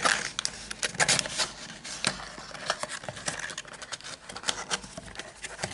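Cardboard phone box and its clear plastic inner tray being handled: irregular rubbing and scraping with many small clicks and taps.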